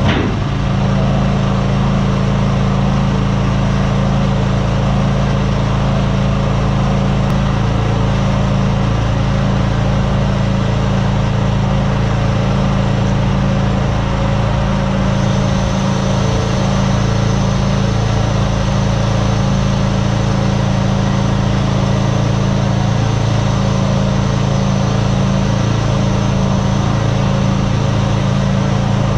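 Bulldozer's diesel engine running steadily at a constant speed, close and loud. A faint high whine joins about halfway through.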